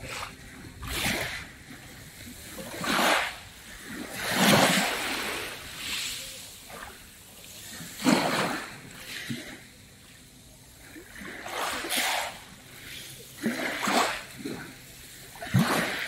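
Small waves lapping on a fine pebble beach, water washing up over the pebbles and drawing back in repeated swishes every second or two.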